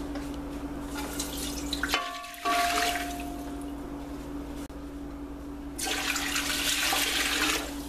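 Water poured from a glass jar into an empty aluminium pressure cooker, splashing onto its bottom in two pours: one about a second in, lasting about a second and a half, and a second, louder one near six seconds, lasting nearly two seconds.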